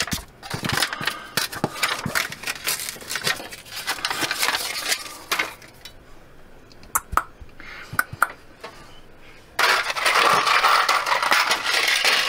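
Quick crackling and clicking as a taped paper template is pulled off a wall. About ten seconds in, a loud rustle and rattle begins as a small plastic bag of plastic pop toggle wall anchors is handled.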